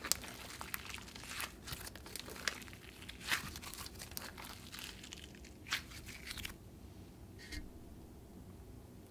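Gummy, creamy slime with clay mixed in being squeezed and folded by hand. It gives off quick, faint clicks and crackles of trapped air, which thin to a few scattered crackles in the last few seconds as the slime is pulled and stretched.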